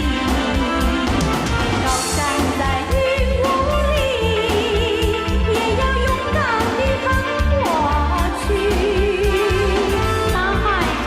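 A Mandarin song: a voice singing a melody with vibrato and pitch slides over a band backing with a steady beat.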